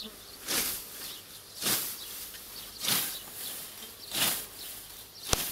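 Hand scythe swishing through tall grass in a steady rhythm: four strokes a little over a second apart. A sharp click comes near the end.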